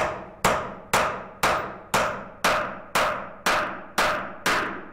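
Claw hammer driving a nail into a wooden block: a steady run of sharp blows, about two a second, each with a brief ringing tail.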